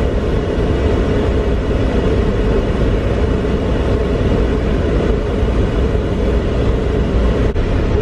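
Steady road and engine noise inside a moving car's cabin.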